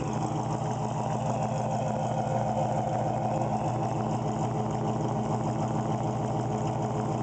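2004 Pontiac GTO's 5.7-litre LS1 V8 idling steadily through Stainless Works long-tube headers, catless mid pipes and an SLP Loudmouth exhaust, heard close at the dual tailpipes.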